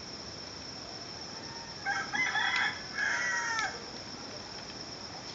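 A rooster crowing once about two seconds in: a few broken opening notes, then a long drawn-out final note that falls away at the end. Steady cricket chirring runs underneath.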